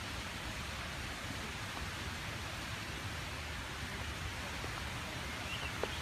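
Steady rushing hiss of outdoor forest ambience, with a brief high chirp and a single click shortly before the end.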